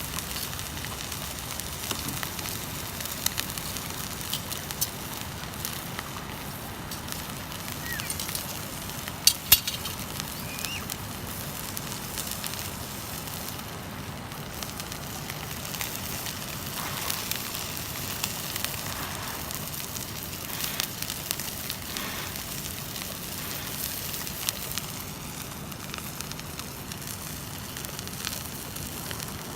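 Wood fire crackling in a fire pit under a cast-iron skillet, with a steady sizzling hiss of steak frying. Scattered sharp pops run throughout, the loudest pair about nine seconds in.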